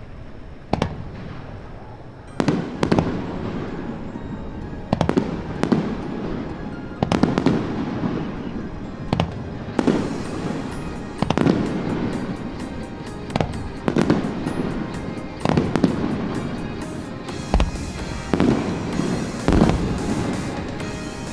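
Fireworks bursting in a steady series, a loud boom about every two seconds, each with a long rumbling echo. From about ten seconds in, dense crackling joins the booms. Music plays underneath.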